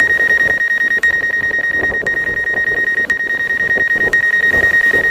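Electronic alarm beep: one steady high tone with a fast trill to it and a faint tick about once a second, starting abruptly and cutting off after about five seconds.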